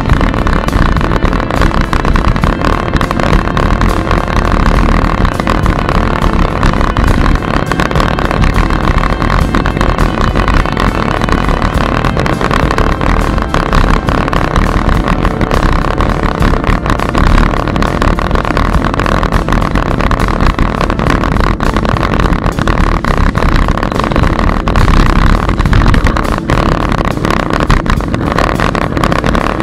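Riding noise from a moving bicycle: steady wind buffeting and the rumble of tyres on a paved path, with a steady hum and frequent small knocks and rattles from the bumps.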